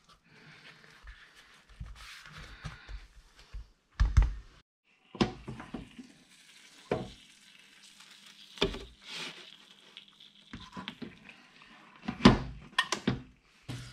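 A soft rustle as a tortilla wrap is folded, then a wrap sizzling on the hot plates of a George Foreman contact grill. Near the end, several loud thumps as the grill lid is handled and shut.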